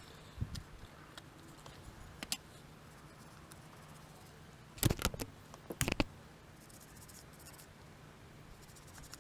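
Small clicks, taps and scrapes from handling the parts of a car's window master switch during cleaning and reassembly, with two clusters of louder sharp knocks about five and six seconds in. A faint steady hum runs underneath.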